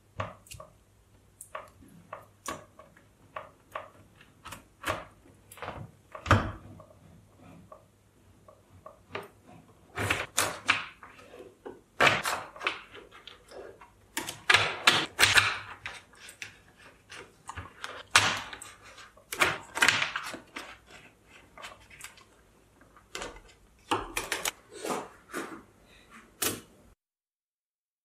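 Small neodymium magnetic balls clicking as they snap together and are pulled apart, in irregular runs of rapid clicks with a few louder snaps.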